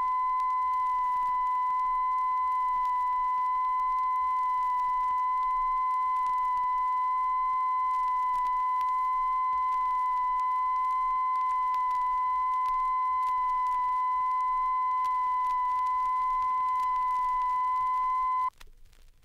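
Steady single-pitch test tone played from a vinyl test record, with fainter overtones above it, the reference tone for checking channel identification and separation between the stereo channels. It cuts off suddenly near the end, leaving faint record surface hiss and a few crackle clicks.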